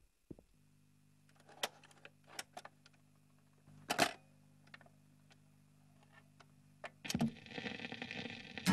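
Scattered light taps and knocks on a wooden desktop from a dog's paws and a hand moving a small blue toy, the loudest about halfway through, over a faint steady hum. Near the end the sound swells and leads into strummed guitar music.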